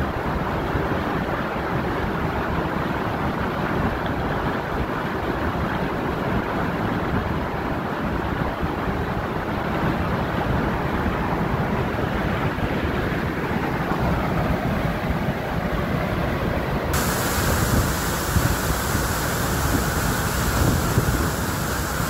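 Mountain stream swollen by monsoon rain, rushing steadily over rocks. About seventeen seconds in the sound turns suddenly brighter and hissier.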